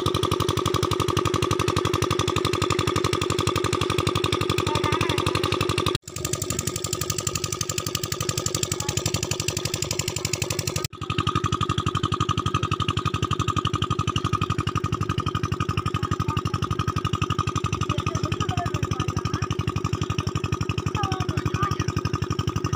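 An engine running steadily with a fast, even beat. It drops out for a moment twice, about six and eleven seconds in.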